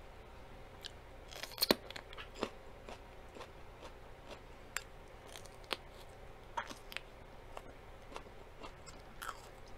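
Close-up crunching and chewing of raw mini sweet pepper: irregular crisp crunches, the loudest about two seconds in.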